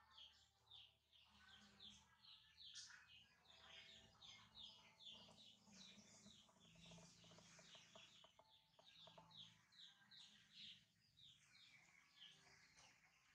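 Faint background birdsong: a rapid, steady run of short, high, falling chirps, about three a second, over a faint low hum.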